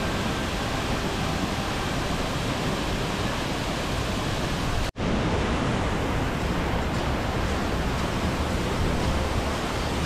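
Khlong Lan Waterfall's large falls rushing: a steady, dense noise of falling water. About halfway through it cuts out for an instant, then carries on unchanged.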